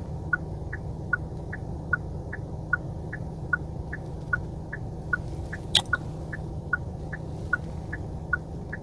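Car indicator relay ticking in a steady two-tone tick-tock, about two and a half ticks a second, as from the hazard lights of a cab stopped at the curb, over a steady low hum from the car. One sharper click comes a little after halfway.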